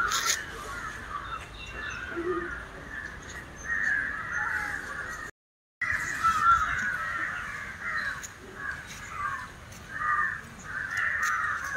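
Several crows cawing at once, a busy overlapping chorus that swells and fades every second or so. The sound cuts out completely for about half a second midway.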